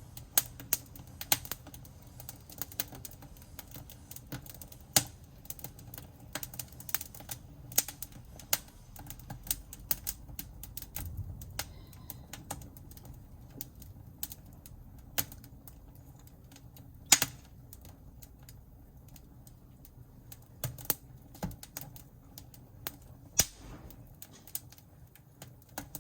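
Wood fire crackling in a fireplace firebox: a steady run of irregular sharp snaps and pops, with a couple of louder pops about two-thirds of the way through and near the end.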